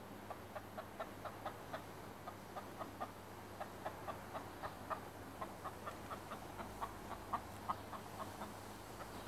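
Black chicken clucking continuously as it forages, a steady run of short clucks about three a second.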